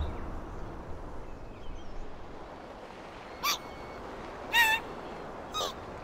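Three short, squeaky calls from a newly hatched chick, about a second apart, the middle one the loudest, over a soft background hiss; music cuts off right at the start.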